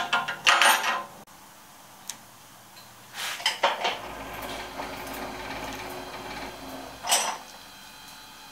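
Small metal tooling being handled: a dial test indicator and its holder clinking and rattling against steel as it is set up on a milling machine spindle, in three short bursts of clatter.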